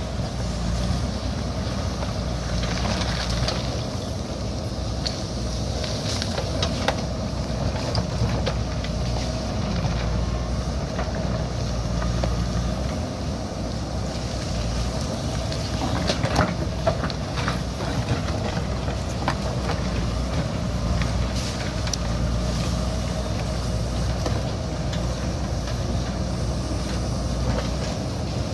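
JCB backhoe loader's diesel engine running steadily under work, with scattered clanks and knocks from the digging, several close together about halfway through.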